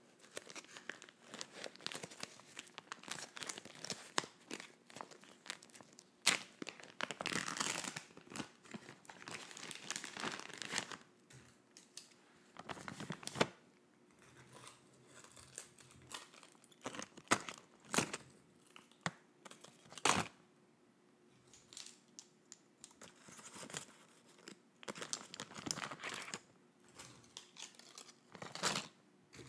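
Clear plastic Ziploc zip-top bag crinkling and rustling in irregular bursts as it is handled close to the microphone, with a few sharp snaps of the plastic.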